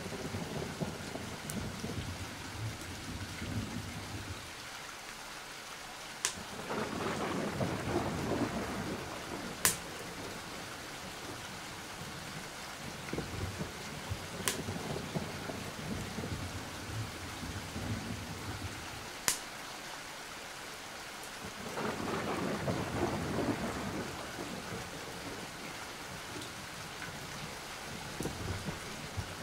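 Thunderstorm ambience: rain falling steadily, with two long rolls of thunder, one about seven seconds in and another near twenty-two seconds, and a few sharp single cracks in between.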